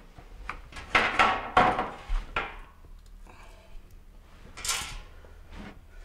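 Handling noise from the refrigerator's removed rear access cover and parts being moved on a wood floor: a burst of clattering knocks about a second in, then a short scrape near the end.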